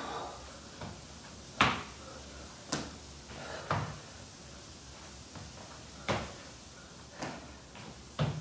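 Thumps of feet and hands hitting a wooden floor during burpees: seven irregular knocks, the loudest about a second and a half in.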